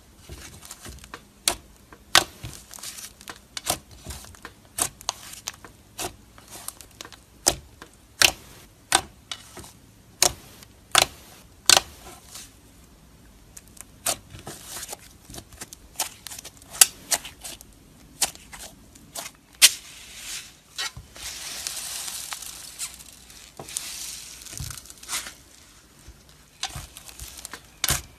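Thick clay slime pressed and poked by fingers, giving a run of sharp sticky pops and clicks, one or two a second. About two-thirds of the way through, a denser crackling hiss lasts a few seconds.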